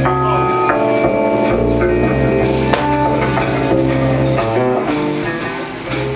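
A jazz band playing live: an electric bass guitar holds low notes under a melody of quick, changing pitched notes, with drums and jingling percussion.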